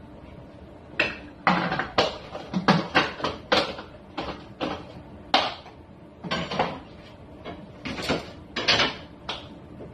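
Kitchen containers and utensils being handled: an irregular string of clatters and knocks, about two a second, some with a short ring.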